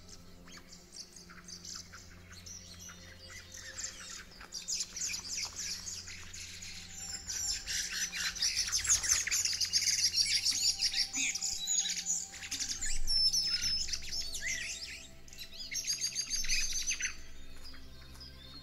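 Several small songbirds singing and chirping in quick, high trills and twitters. The singing builds, is busiest in the middle, has a last burst near the end and then fades.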